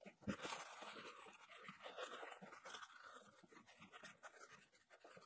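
Faint, irregular rubbing and wiping of a rag on a cylinder head as engine degreaser is cleaned off, mostly in the first few seconds, then a few soft ticks.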